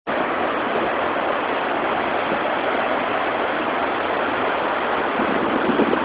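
Heavy, churning white water from a river pouring into a concrete irrigation canal, rushing steadily without a break. A powerful, dense rush of water.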